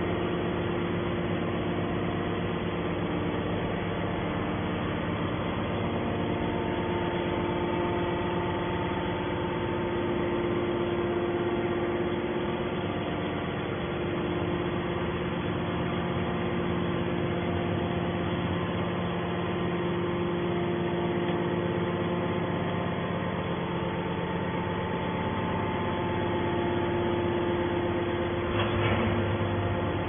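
Hydraulic scrap metal baler's power unit running without a press stroke: a steady motor-and-pump hum with several fixed tones that hold level throughout.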